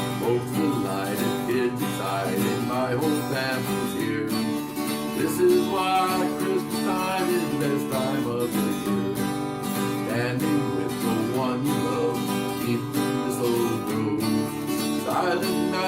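Acoustic guitar strummed steadily, accompanying a song.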